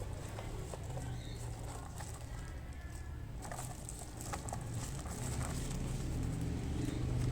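Keystrokes on a Keychron K2 mechanical keyboard with Gateron Brown switches: irregular, spaced-out key presses clacking on the plastic-framed board, over a steady low hum.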